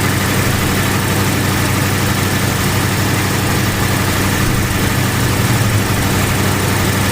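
1979 MG's engine idling steadily at operating temperature, with its electric radiator fans running and cooling it down.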